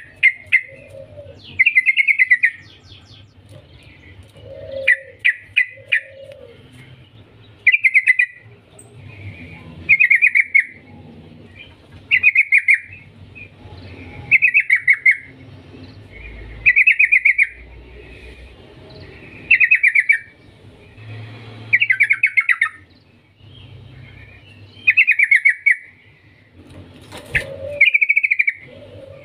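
Yellow-vented bulbul singing short, bubbling phrases of rapid chattering notes, one phrase every two to three seconds, with a few lower notes between them.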